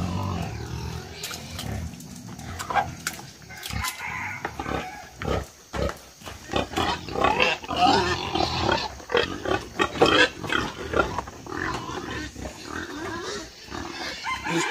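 Wild boars grunting and squealing in a string of short, irregular calls, busiest and loudest around the middle.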